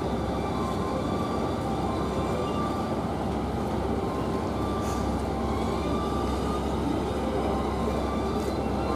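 Trains at a station platform: a steady rumble and hum of train machinery, with a few faint steady high tones over it.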